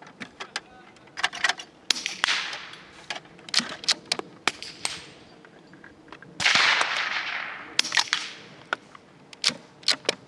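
A Browning T-Bolt straight-pull .22 rimfire rifle, fitted with a Wildcat moderator, firing with short muffled cracks. Its bolt clicks as it is pulled back and pushed forward between shots. Louder gunshots with a long rolling echo come about two seconds in and again past the middle.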